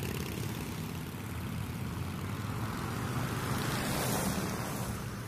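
Motorbike engine sound effect, a steady low rumble, with a brief swell of hiss about four seconds in.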